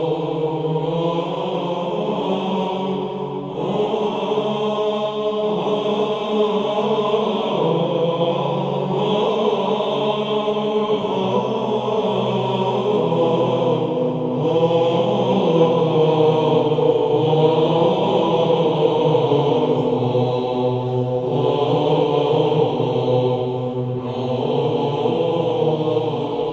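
Orthodox church chant: voices singing a slow melody over a steady held drone note.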